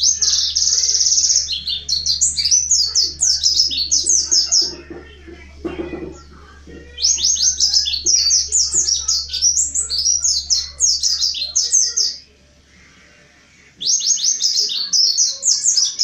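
Mountain white-eye (pleci montanus) singing in three bouts of fast, high chattering notes, each lasting a few seconds, with short pauses between.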